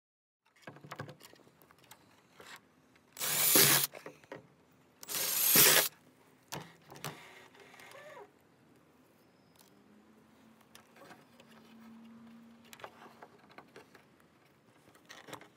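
Nylon zip ties being pulled tight through their ratchet heads: two loud zipping rasps about a second and a half apart, each under a second long, then scattered small plastic clicks and handling.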